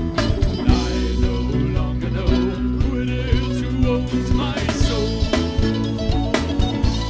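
Band music with guitar over a steady beat.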